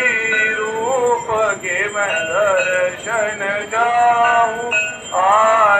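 Devotional Hindu aarti hymn sung in long melodic phrases, with bells jingling along.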